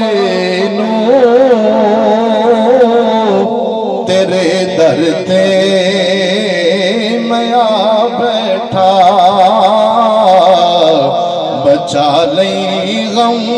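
A man singing a devotional naat into a microphone, holding long wavering notes with many ornamental turns, over a steady low drone.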